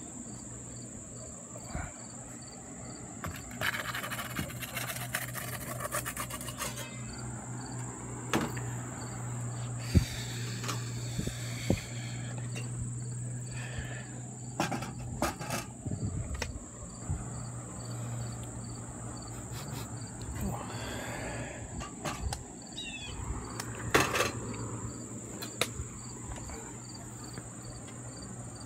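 A steady high drone of insects with an even pulsing chirp behind it, broken by sharp metal knocks and clanks from a metal pizza peel and the oven's metal door. A low hum runs through the first half, and a voice is heard briefly at times.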